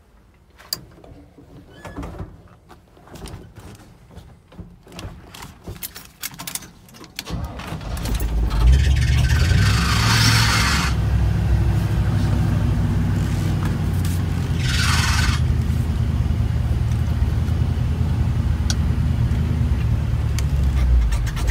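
Scattered clicks and knocks, then the 1956 Chevy truck's V8 starts about seven seconds in and settles into a steady idle. Two short bursts of rushing noise come over it at about ten and fifteen seconds.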